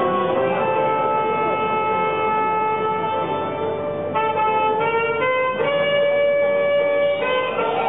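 Live music: long held notes, several sounding at once, that change pitch in a few steps from about halfway through.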